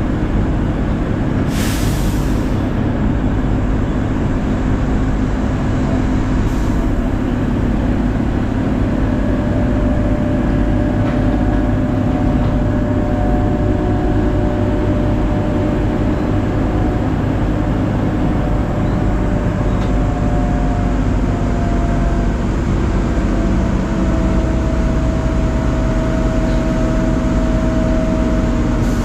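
Large mobile crane's diesel engine running steadily, with a short hiss about two seconds in and a faint thin whine joining from about halfway.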